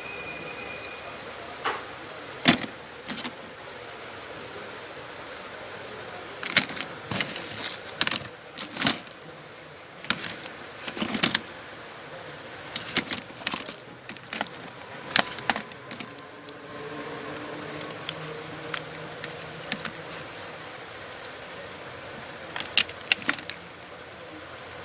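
Irregular sharp clicks and taps of small hard plastic and metal parts being handled, as an old Nokia 1200 phone is handled and taken apart, over a steady faint hiss.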